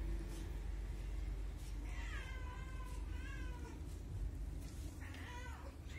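Cat meowing three times, each a short meow of about half a second: about two seconds in, again a second later, and once more near the end.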